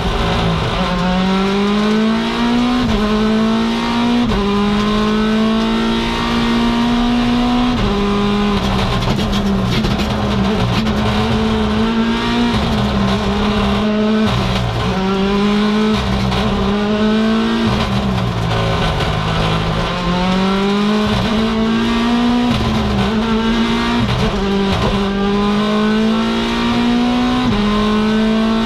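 Mini John Cooper Works WRC's 1.6-litre turbocharged four-cylinder engine, heard from inside the cockpit, driven hard on a rally stage. The revs climb in each gear and drop at each quick shift, over and over.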